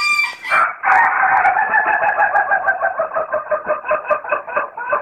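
Rooster crowing: a short call, then one long drawn-out crow that quavers rapidly for about four seconds.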